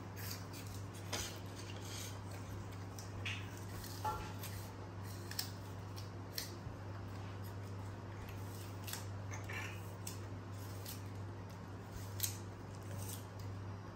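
Young macaques biting and chewing crisp apple slices: scattered short crunches and small clicks, over a steady low hum.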